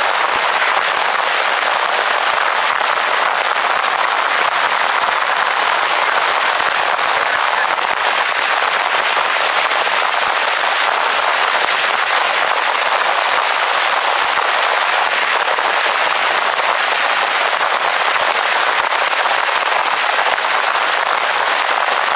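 Heavy rain falling, a dense, steady crackling hiss of countless drops.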